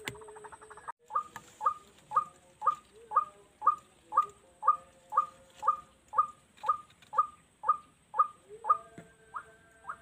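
White-breasted waterhen (ruak-ruak) calling: a monotonous series of short downward-slurred notes, about two a second, starting after a brief break about a second in and changing pattern near the end.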